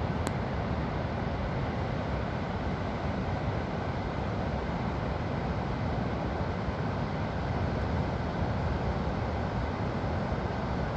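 Pacific Ocean surf breaking and washing onto a sandy beach: a steady, unbroken rush of noise, heaviest in the low end.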